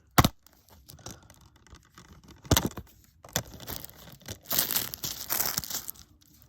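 Plastic wrapping on a Blu-ray set being torn and crinkled, with a sharp click just after the start and another about two and a half seconds in, then a long stretch of crackling.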